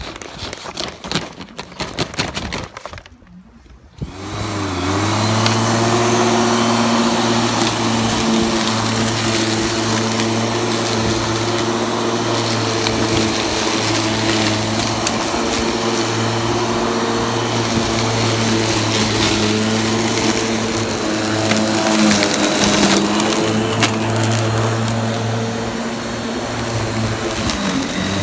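Corded MacAllister 35 cm electric lawn mower: after a few seconds of rustling and clicks from handling the grass box, the motor starts about four seconds in with a brief rising whine and then runs steadily while mowing, its pitch dipping slightly a few times.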